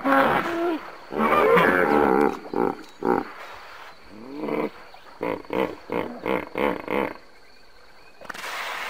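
Hippopotamus calling: loud, deep grunting honks, with a long drawn call in the first couple of seconds and then a run of short honks about three a second. A short rush of noise follows near the end.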